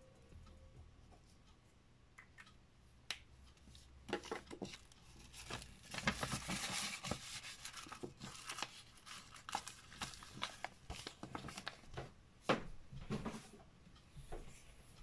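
Paper envelope being handled: rustling and sliding paper as a card is slipped into it, densest about six to eight seconds in, with scattered light taps and clicks.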